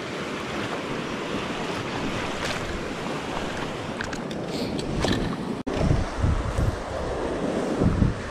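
Steady rush of a fast river running high with spring runoff. From about five seconds in, gusts of wind buffet the microphone.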